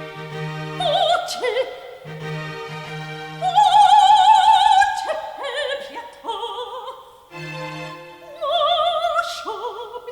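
Opera music: a voice singing long notes with wide vibrato over accompaniment, the longest and loudest note about four seconds in.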